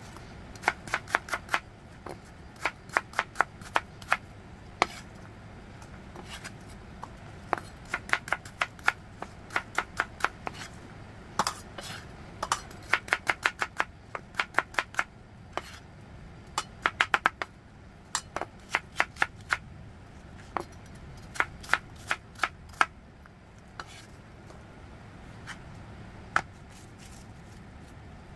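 Chef's knife dicing peeled apple on a wooden cutting board: runs of quick, sharp knocks, several a second, with short pauses between runs, growing sparser near the end.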